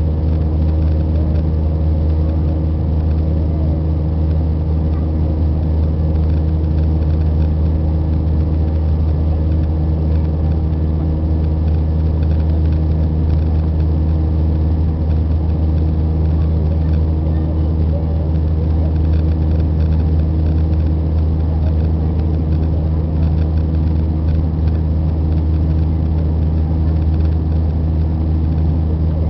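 Airbus A320 cabin noise in the climb after takeoff, heard at a window seat beside the wing-mounted jet engine: a steady engine drone with a deep hum and a few steady tones over it.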